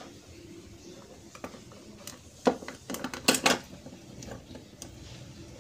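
Small hard parts clicking and clattering as an opened refrigerator defrost timer is handled: a few scattered light clicks, then a quick cluster of sharper knocks about halfway through.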